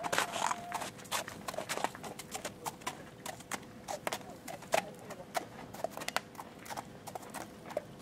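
Horses' hooves stepping on snowy, muddy paddock ground: irregular, unevenly spaced sharp steps.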